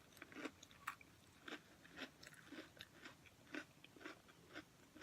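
Faint mouth sounds of a person chewing thin, crispy pretzel crackers: short, soft crunches and crackles about once or twice a second.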